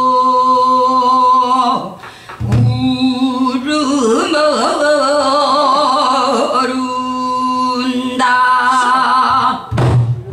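A female pansori singer's voice holds long notes, wavering with a wide vibrato in the middle. A pansori barrel drum (buk) thumps a stroke about two seconds in and again near the end.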